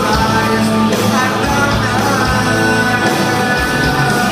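Live rock band playing loud: electric guitars, bass and drums with a lead vocal.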